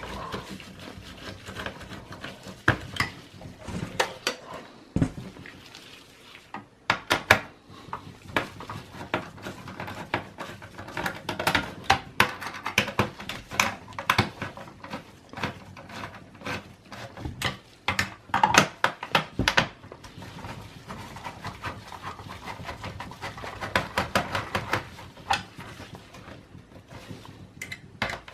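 Irregular small clicks, taps and clatter of a screwdriver and metal parts being handled while a desktop PC's CPU heatsink is unscrewed and removed.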